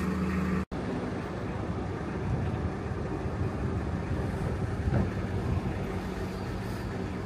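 Narrowboat's diesel engine running steadily under way, a low hum under a noisy wash. There is a short knock about five seconds in.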